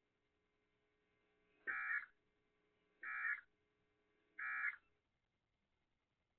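NOAA Weather Radio SAME end-of-message code: three short, identical bursts of screechy digital data tones about 1.4 seconds apart, signalling the end of the broadcast alert message.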